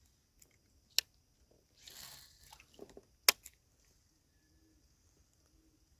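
Fishing gear handled in a kayak: two sharp clicks about two seconds apart, with a short rushing hiss between them.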